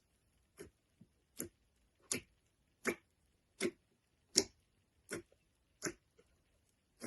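Slime being pressed or poked in a steady rhythm, a short sticky click or pop each time, about every three-quarters of a second.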